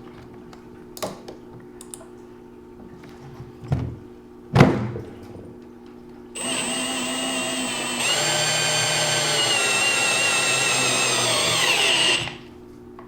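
A few clicks and a sharp knock, then a drill motor runs for about six seconds, turning the EasyFit Isolator recore tool to drive the new valve core back down. The drill steps up in speed about two seconds into the run and winds down, pitch falling, as it stops.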